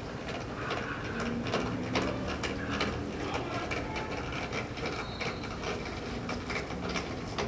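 Car jack being cranked down, its handle and screw mechanism clicking and rattling irregularly as the car is lowered.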